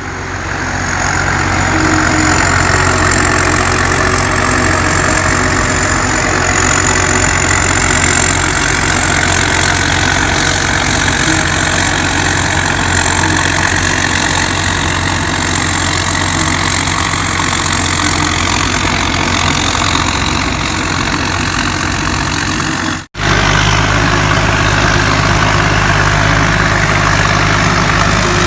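Combine harvester running steadily: a low engine hum under a loud, high-pitched whine from its blower. The sound cuts out for an instant about three-quarters of the way through.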